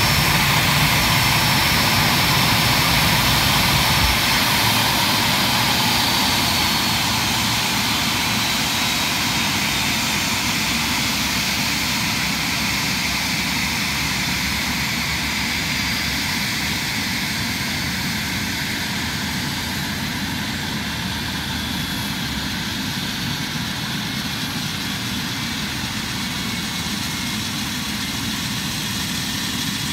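Airbus A319's twin jet engines idling with the aircraft stopped, a steady rush with a high whine that slides slightly down in pitch a few seconds in, the whole sound slowly getting quieter.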